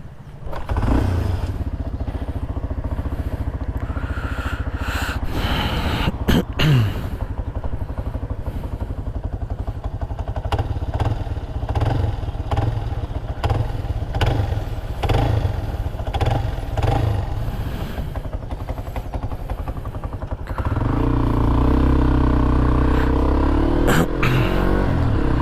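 Hero XPulse 200 FI motorcycle's single-cylinder engine running, getting louder with a change of tone about 20 seconds in. The owner says this engine has begun to sound like a blender at 10,000 km.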